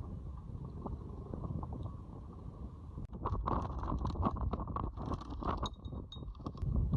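Anchor chain hauled in by hand over a sailboat's bow roller: the metal links clank and rattle in quick, irregular strokes from about three seconds in, over a steady low rumble.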